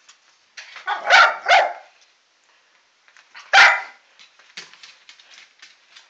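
Loud calls from a pet, tagged as barking: two in quick succession about a second in, then one more at about three and a half seconds.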